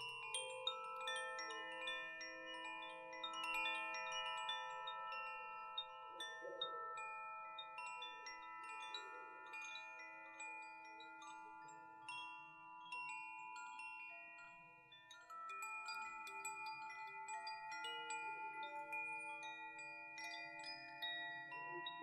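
Two Koshi chimes gently played by their swinging sails: frequent light strikes on the tuned metal rods inside the bamboo tubes, their bell-like tones ringing on and overlapping into a soft, shifting cluster of notes.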